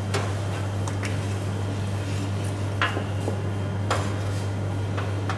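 Wooden spatula stirring chicken in coconut milk in a large steel wok, with about five short scrapes and knocks against the pan over a steady low hum.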